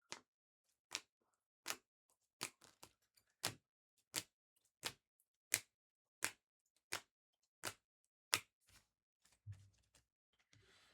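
Trading cards being laid down one by one on a table, each making a sharp snap, about one every 0.7 seconds, with a few softer taps near the end.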